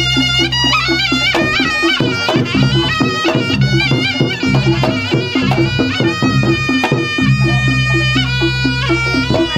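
Reog Ponorogo ensemble music: a slompret shawm plays a nasal, bending melody over a quick steady beat of drums and gongs, with a low sustained tone underneath.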